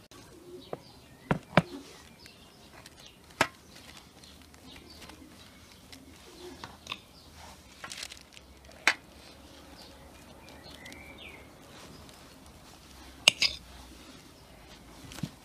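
A table knife scrapes and taps as butter is spread over halved bread on a parchment-lined metal baking tray, with a handful of sharp knocks. Birds call in the background.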